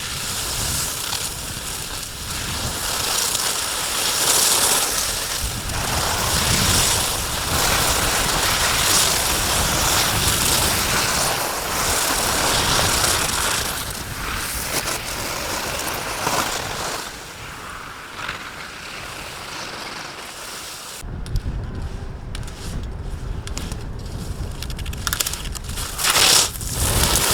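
Skis scraping on hard-packed snow, a rushing hiss that swells and fades every couple of seconds, mixed with wind buffeting the microphone. About 21 s in the hiss gives way to a low wind rumble, with a few sharp scrapes near the end.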